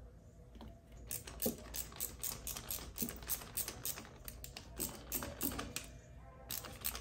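Rubber coupling of a homemade boost leak tester being worked over a turbo inlet by hand: a run of quick, irregular clicks and taps, several a second, that stops shortly before the end.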